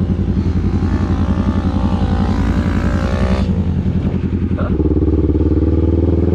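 Sport quad's engine running under the rider, its pitch wavering at moderate throttle. About three quarters of the way through it steps up to a higher, steadier note as the quad accelerates.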